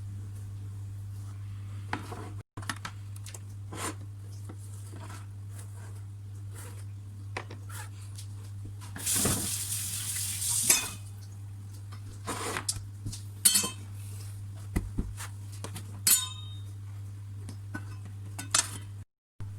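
Kitchen clatter of dishes and metal utensils: scattered knocks and clinks, some ringing briefly, with a rushing noise for about two seconds from about nine seconds in. A steady low hum runs underneath.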